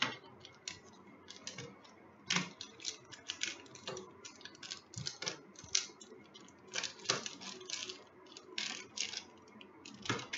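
Wrapped chocolate bars in foil and plastic packaging being picked up, shuffled and set down on a hard tabletop: irregular crinkles and light taps.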